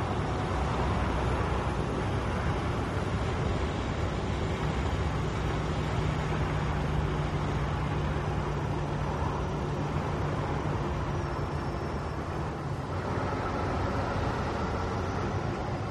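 Volvo FH truck driving on the road: a steady engine drone with tyre and road noise. The low hum shifts after a short dip about thirteen seconds in.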